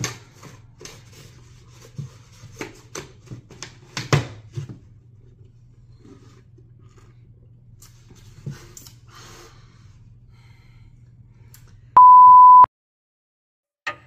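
Small clicks and scrapes of sipping through a straw from a plastic-lidded paper cup, over a steady low hum. Near the end a loud, steady electronic beep sounds for under a second and cuts off into dead silence.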